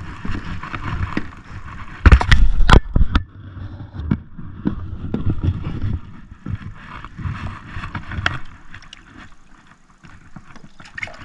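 Knocks, bumps and water splashing as a largemouth bass is let go over the side of a jon boat, with the loudest cluster of thumps about two seconds in.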